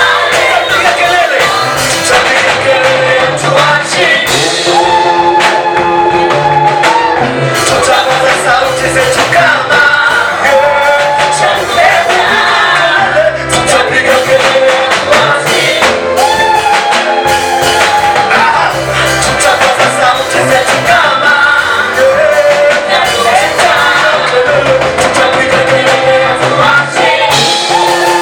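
A vocal group singing a church praise song over a full band, with long held sung notes, a bass line and steady percussion.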